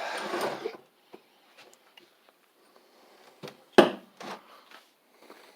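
A stuck crankshaft being worked out of a Briggs & Stratton WMB engine block: faint scraping and rubbing, then a single sharp knock about four seconds in as it comes free.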